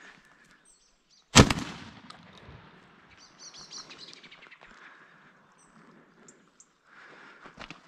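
A single shotgun shot about a second and a half in, loud and sharp with a trailing echo. Small birds chirp faintly a couple of seconds after.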